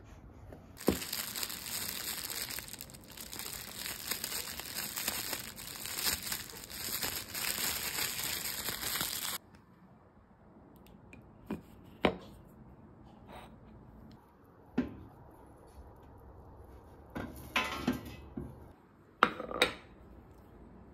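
Plastic packaging crinkling and rustling for about eight seconds as a frozen pastry is unwrapped, stopping abruptly. A few sharp clicks and knocks follow, spaced out: a plate and the pastry handled on a stone countertop.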